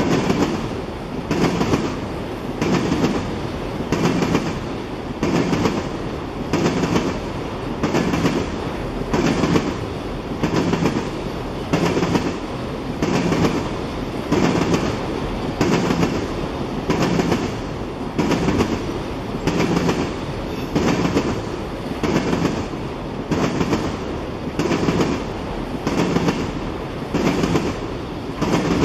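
Norfolk Southern freight train of loaded tank cars rolling past, its wheels clacking in a steady rhythm, a little over one clack a second, over a constant rumble.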